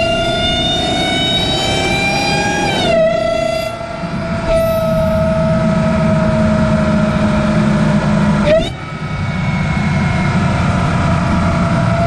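Dodge Charger Hellcat's supercharged 6.2-litre V8 under way, heard from inside the engine bay through a Legmaker cold air intake: a strong supercharger whine over the engine's rumble. The whine rises slowly, dips and briefly cuts out about three seconds in, comes back falling gently, then gives a quick upward sweep and drops away near nine seconds before building again.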